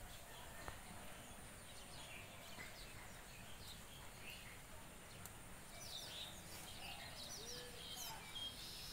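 Faint bird chirps over a quiet outdoor background hiss, with a cluster of quick chirps from about six to eight seconds in.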